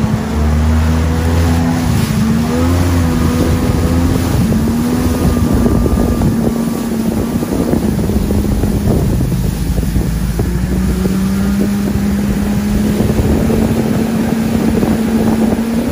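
Jet ski engine running steadily at speed, its pitch wavering slightly, with water rushing against the hull and wind on the microphone.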